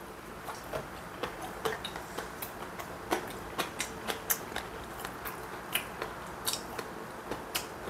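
Chewing crunchy seasoned pickled radish (danmuji muchim), with irregular crisp crunches and clicks from the mouth.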